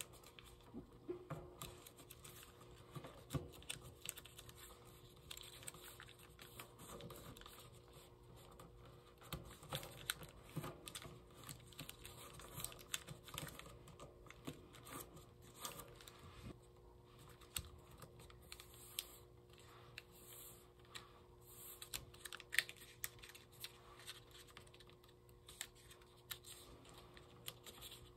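Origami paper being folded and creased by hand: an irregular run of soft taps, clicks and crinkles as fingers press and flatten the paper.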